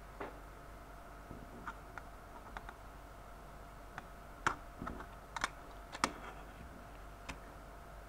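A plastic Sony bianca MiniDisc cartridge being handled on a table: scattered light clicks and taps, loudest and closest together about halfway through as it is picked up and turned over. A faint steady hum runs underneath.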